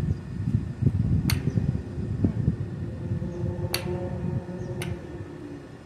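Low rumbling noise with a steady hum underneath and a few sharp clicks: one about a second in, and two more near the end.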